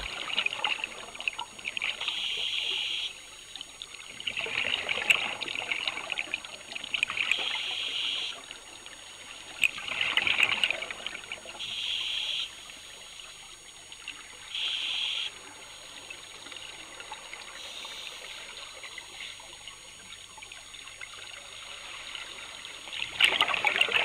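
Scuba divers breathing through their regulators underwater: bursts of hissing air and bubbling exhaust every one to three seconds, then a quieter stretch, with another burst near the end.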